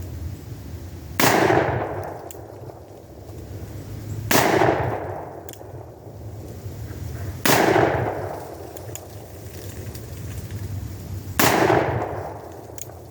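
Four shots from a Pietta 1858 Remington-replica .44 cap-and-ball revolver loaded with 200-grain conical bullets over 2F rifle powder. Each shot is a sharp report with an echo that fades over a second or two. The shots come three to four seconds apart.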